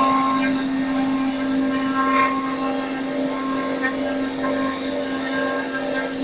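Three-axis CNC router running while machining a door: a steady motor whine with several overtones, with brief sharper touches of cutting noise about two seconds in.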